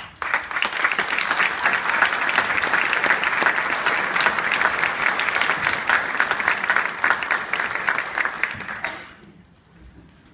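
Audience applauding, a dense clatter of clapping that dies away about nine seconds in.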